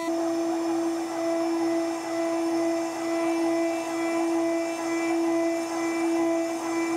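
CNC router spindle whining steadily as an end mill cuts aluminium, with a hiss of cutting. The cutting noise swells and dips about once a second.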